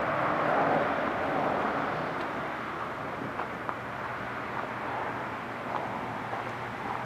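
Steady outdoor noise that fades over the first few seconds and then holds level, with a few faint scattered clicks.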